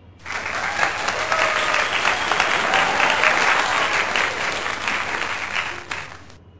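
Applause sound effect: a crowd clapping that starts abruptly and cuts off about six seconds later.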